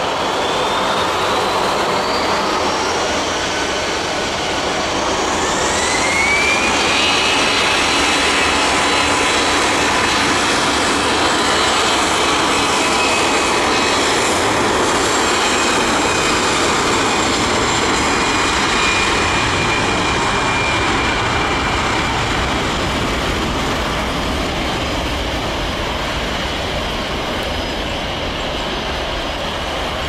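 Airbus A320-214's CFM56 turbofan engines at takeoff thrust as the jet accelerates down the runway: a loud, steady jet rumble with a high fan whine that rises in pitch over the first several seconds and then holds, easing slightly toward the end.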